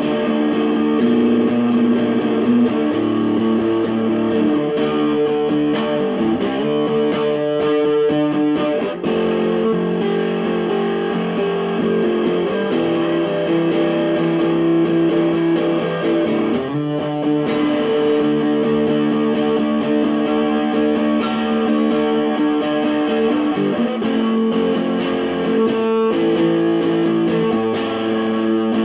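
Electric guitar played through a Silvercord Tonebender-clone fuzz pedal, strumming and letting chords ring, changing every few seconds, with a brief break in the sound about nine seconds in.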